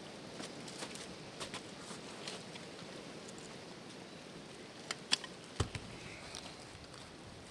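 Quiet outdoor background with scattered light clicks and a few sharper knocks about five seconds in.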